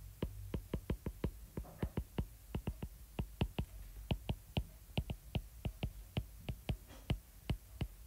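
Stylus tip tapping and clicking on an iPad's glass screen during handwriting: a quick, irregular run of sharp clicks, several a second, one for each pen stroke.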